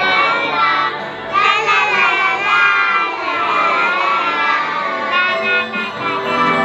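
Background music: a song with a child's high singing voice over an instrumental backing.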